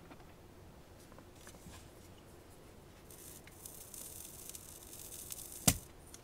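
Soldering iron tip melting a flux-coated solder joint on a circuit board: a faint sizzling hiss of boiling flux that starts about halfway through. A single sharp click follows near the end.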